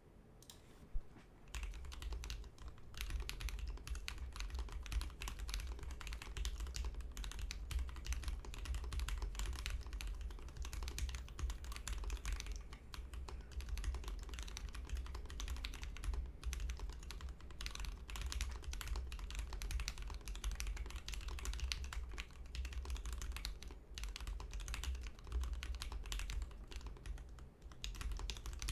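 Continuous typing on a custom 60% mechanical keyboard: a Synthesis60 board with an FR4 plate in a stacked acrylic case, Krytox-lubed Tecsee Jadeite linear switches and PBT keycaps. A single key click comes about a second in, then steady fast typing from about two seconds on.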